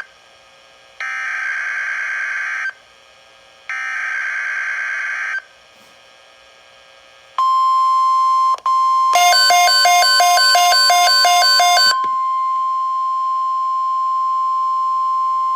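NOAA Weather Radio Emergency Alert System activation. Two buzzy SAME header data bursts, each about a second and a half, are followed by the steady 1050 Hz warning alarm tone. For about three seconds in the middle of the tone, a loud electronic beeping pulses over it about four times a second.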